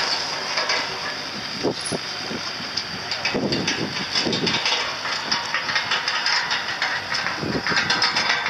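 Wind buffeting the microphone in uneven low gusts, over a steady hiss.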